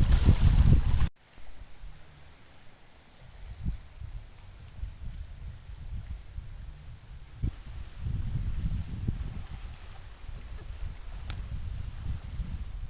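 A steady, high-pitched chorus of insects, with a low wind rumble on the microphone underneath. The first second is a louder rush of wind noise that cuts off abruptly.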